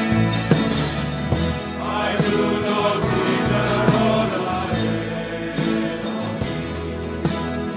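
Choir singing a hymn with instrumental accompaniment and a steady beat, as for a church procession.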